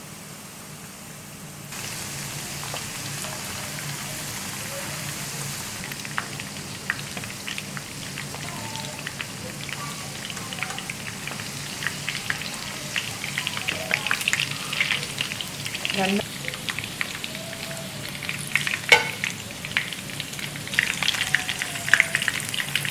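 Coated chicken pieces frying in hot oil: a steady sizzle that steps up about two seconds in, with crackles and pops growing denser toward the end. A low steady hum runs underneath.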